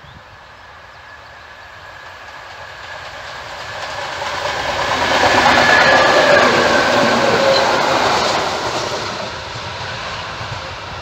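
EN57 electric multiple unit passing: the sound of its wheels on the rails and its running gear builds as it approaches, peaks about halfway through, then fades as the train moves away.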